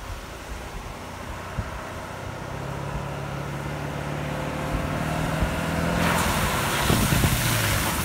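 Pickup truck approaching on a wet dirt road, its engine growing steadily louder. About six seconds in, the hiss and splash of its tyres through puddles comes in.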